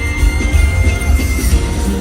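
Pop song's instrumental passage played loud through a concert PA, with heavy bass and a high note held for about a second and a half.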